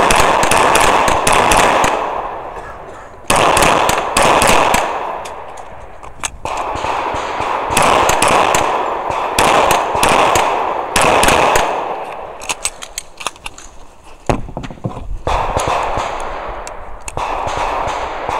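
Close, loud gunfire from a semi-automatic pistol, fired in quick strings of several shots with short pauses between strings, each string trailed by a ringing echo.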